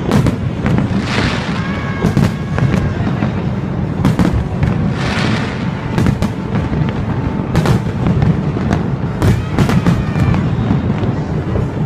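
Aerial fireworks bursting in quick succession: many sharp bangs over a continuous low rumble, with hissing crackle about a second in and again about five seconds in.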